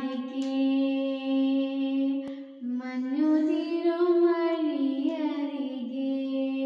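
A girl singing a slow song into a handheld karaoke microphone, holding long steady notes. Her voice rises in pitch about three seconds in and then falls back.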